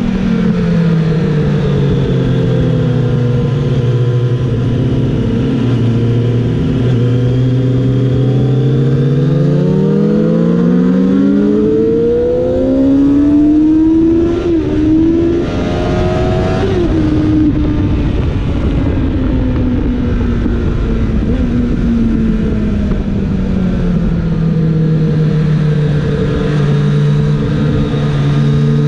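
Kawasaki ZX-7R's 750 cc inline-four engine heard from onboard at speed with wind rush: revs falling at first and holding low for several seconds, then climbing hard for about eight seconds to high revs with a brief break partway up, easing off and falling again, and rising once more near the end.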